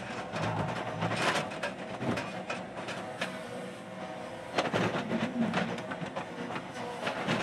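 Yanmar mini excavator running with a steady engine and hydraulic hum while its steel bucket scrapes and knocks against rock in the pit, with sharp clanks about a second in and again past halfway.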